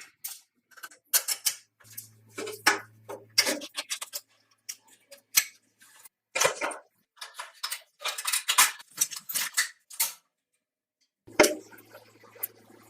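Metal parts clinking, tapping and scraping as they are handled and worked on, in irregular clusters. A low steady hum comes in twice, each time for a second or two.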